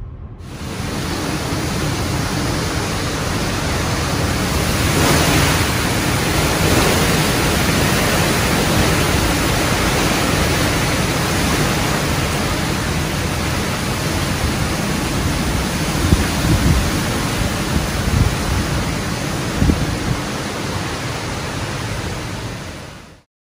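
Hurricane wind and driving rain blowing hard: a loud, steady rush with a stronger gust about five seconds in and a few low thumps later on. It cuts off suddenly near the end.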